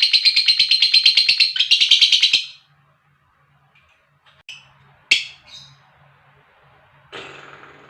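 Lovebird 'ngekek': a long, fast chattering trill of rapidly repeated high notes, the call a lovebird makes to companions, which breaks off about two and a half seconds in. A few short single chirps follow, then a lower, noisier sound near the end.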